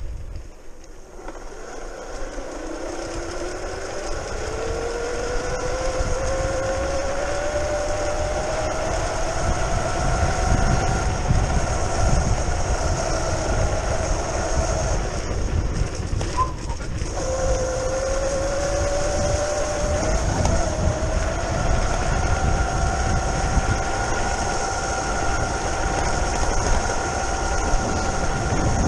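Brushless outrunner motor of a modified Razor E300 electric scooter whining under way. Its pitch climbs over several seconds as the scooter accelerates, then holds steady. About halfway through it drops off briefly and winds back up, over a steady rumble of tyres and wind.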